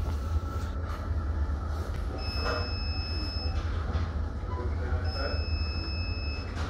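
Two long electronic beeps from hospital equipment, each lasting over a second, about three seconds apart, over a steady low hum.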